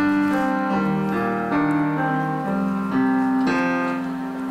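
Roland digital piano played live: slow, held chords, a new chord struck every second or so.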